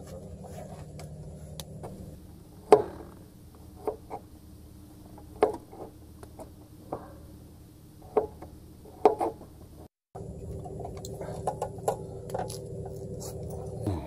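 Kitchen knife knocking on a plastic cutting board as garlic cloves are sliced: scattered single taps, the sharpest about three seconds in, over a low steady hum.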